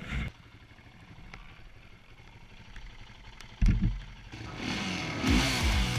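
Suzuki quad's engine running quietly at low throttle, then opened up with a sudden loud surge just past halfway. It keeps revving near the end, the pitch rising and falling in repeated sweeps.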